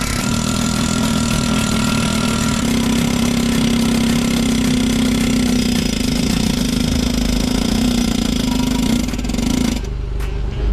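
A small motor or engine running at a steady speed, then cutting off suddenly near the end.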